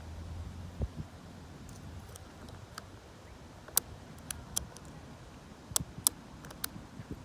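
Lock pick and tension tool working the pins of a Lockwood 570 oval mortise lock cylinder: sharp, small, irregular clicks, several in quick succession in the second half. Under them is a low rumble of wind on a jacket-covered microphone, strongest at the start.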